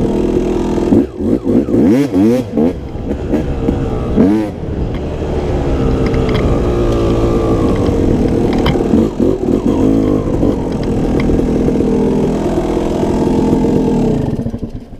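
Dirt bike engine under way: revved up and down several times between about one and four and a half seconds in, then held at a steady note. Near the end the engine sound drops away as the bike stops.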